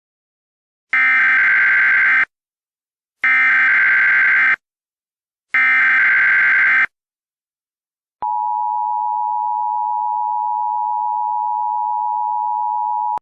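Emergency Alert System SAME header: three identical short bursts of shrill data tones, each a little over a second long, followed by the steady EAS attention tone starting about eight seconds in and stopping near the end.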